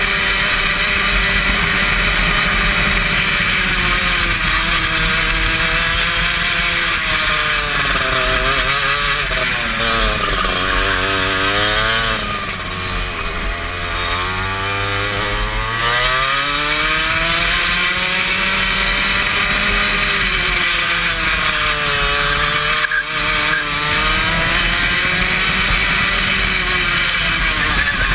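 Kart's two-stroke engine heard onboard, running hard at high revs with its pitch wavering up and down through the corners. About twelve seconds in it drops in pitch and a little in loudness as the kart slows, then climbs again as it accelerates away.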